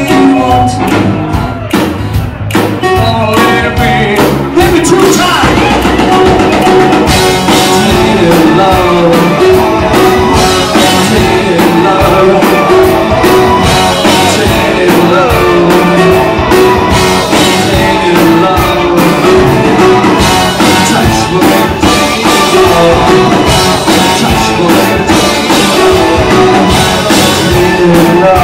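Live rock band playing loud: drum kit, electric guitar and bass guitar, with a singing voice.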